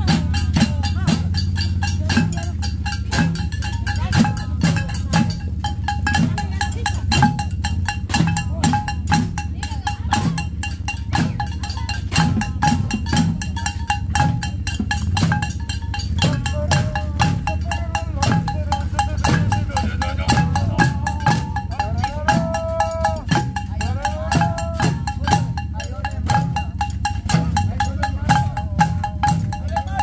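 Homemade marching percussion band of tin cans and plastic jugs beaten with sticks, keeping a quick, even beat of clattering strikes.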